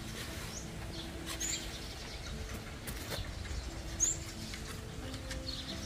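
Quiet outdoor ambience with birds chirping now and then, a few short high calls, the clearest about two thirds of the way through.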